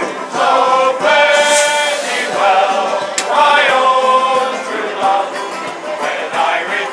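A group of men singing a sea shanty together, from a shanty choir performing in the open.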